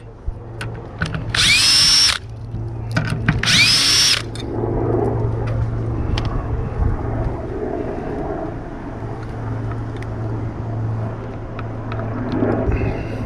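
Cordless power drill spinning out the gas-cap bolts: two bursts of about a second each, the motor pitch rising, holding and falling off, about one and three seconds in. After that, lower background noise with a steady hum.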